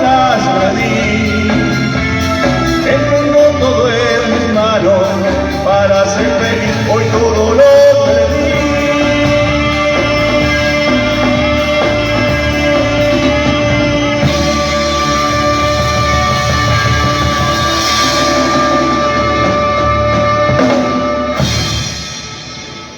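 Live band playing a song with vocals, ending on a long held final note that cuts off and fades near the end.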